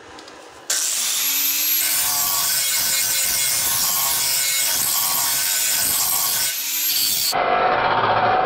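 Corded angle grinder grinding the edge of a chrome-plated sheet-metal aftermarket fan shroud for an air-cooled VW engine, trimming it for clearance so it sits down fully. The grinder starts about a second in with a high whine that rises as it spins up, then runs under steady load against the metal, and the sound turns duller near the end.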